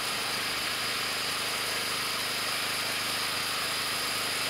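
Homemade bandsaw mill running steadily, a continuous mechanical drone with a light rattle.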